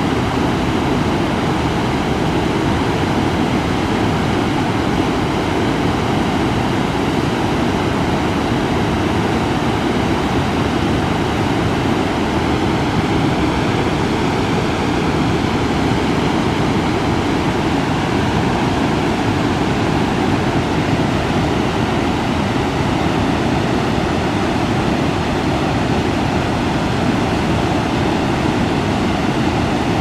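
River water pouring over a low concrete weir and churning through whitewater rapids below it: a loud, steady rush that does not let up.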